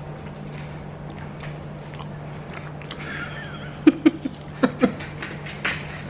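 Someone biting and chewing crunchy food, a few sharp crunches clustered in the second half, over a steady low hum.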